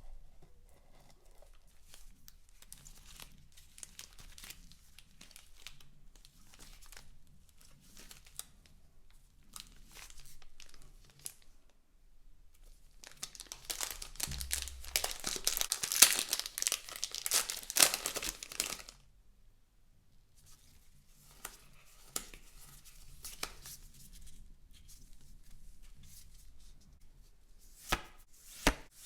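Packaging being handled during an unboxing: light crinkling and rustling, then a long, loud tear lasting about six seconds midway, more crinkling, and a few sharp taps near the end.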